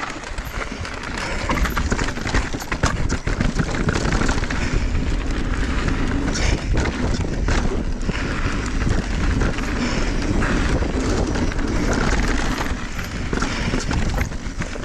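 Mountain bike being ridden over a rough dirt and rock trail: tyres rumbling and crunching on the ground, with frequent rattles and knocks from the bike over bumps.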